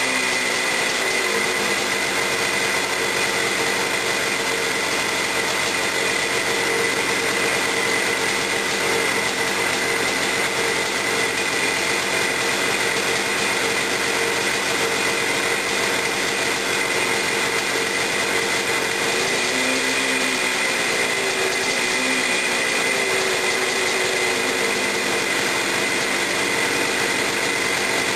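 Husqvarna XC250's two-stroke single-cylinder engine running steadily just after its first cold kick-start of the day, firing on a converted GM HEI electronic ignition. Its speed briefly rises and falls about twenty seconds in.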